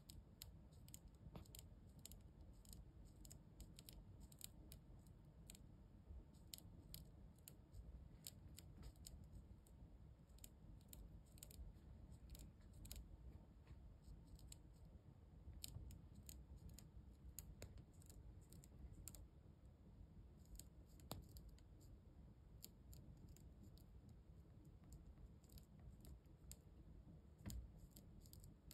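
Final-instar Asian swallowtail caterpillar chewing a leaf: faint, crisp clicks of its jaws snipping through the leaf, a few a second in irregular runs, over a low hiss.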